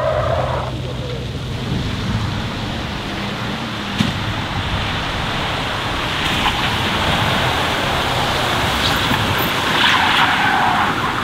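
Tatra truck driving on a wet skid pad: its engine runs low and steady under a rushing hiss of tyres on the wet surface that grows louder after about six seconds. A single sharp knock sounds about four seconds in.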